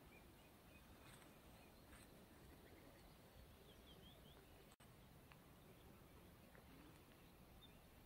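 Near silence: faint outdoor ambience with a few faint bird chirps about halfway through, and a brief gap in the sound just after that.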